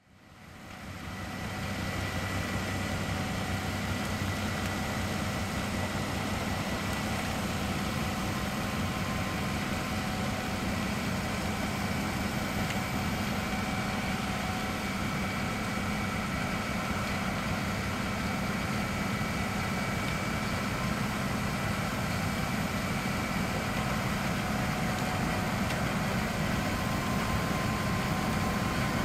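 Fendt 516 Vario tractor running at steady engine speed, powering its Dalen front-mounted snow blower as it throws snow up the chute into a dump truck. A steady hum with a faint high whine and the rush of blown snow, fading in over the first two seconds.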